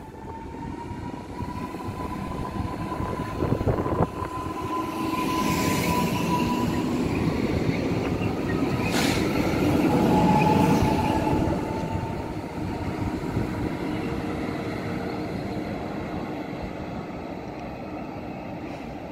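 PESA Elf (36WEa) electric multiple unit running into the platform: wheel-on-rail rumble with a steady high whine for the first few seconds. It is loudest as the train passes about ten seconds in, then fades away.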